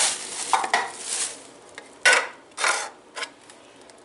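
Dishes and kitchen utensils being handled: a series of about six short scrapes and clatters, the loudest about two seconds in, dying away near the end.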